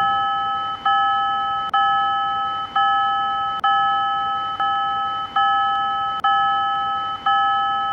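Electronic alarm chime of several tones sounding together, struck about once a second, each ring fading slowly before the next; nine strikes, then it cuts off suddenly.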